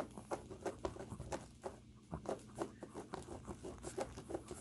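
A Shih Tzu puppy's paws digging and scratching at a shaggy rug: quick, uneven scratches, several a second.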